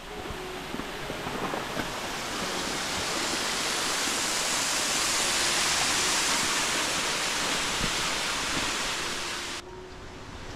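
Waterfall rushing: a steady hiss of falling water that swells over the first few seconds and cuts off abruptly near the end.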